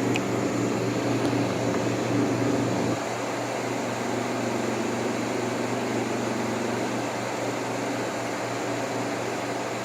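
1958 Carrier 4,500 BTU window air conditioner running in cooling mode: the compressor's steady hum under the rush of its blower fan. The sound drops slightly about three seconds in and then holds steady.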